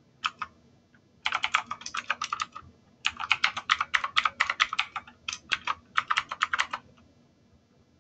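Typing on a computer keyboard: a couple of lone keystrokes, then quick runs of key clicks from about a second in until near the seven-second mark, with short pauses between the runs.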